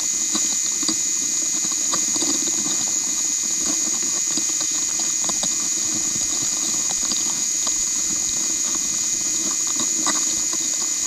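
Underwater sound picked up by a GoPro in its waterproof housing on the sea floor inside a crab pot: a steady hiss with a thin high whine, sprinkled with many small clicks and crackles.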